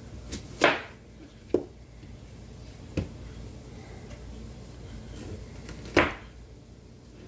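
A kitchen knife chopping an onion on a cutting board: four separate, irregularly spaced strikes, the first and last loudest.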